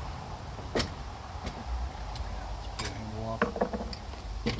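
Scattered clicks and clinks of metal hand tools and chainsaw parts being handled during a teardown, a handful of separate knocks over a few seconds, over a steady low hum.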